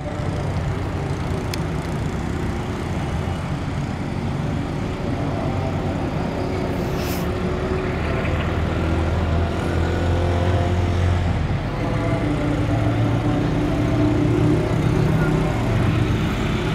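Diesel locomotive engine running as the express train approaches: a steady, low mechanical drone that slowly grows louder as it comes closer.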